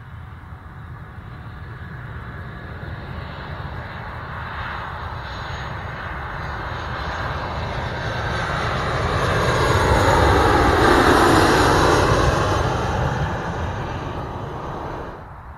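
Jet airliner on approach, its engine noise growing steadily louder as it comes in low, peaking about ten seconds in with a falling pitch as it passes, then fading before cutting off abruptly near the end.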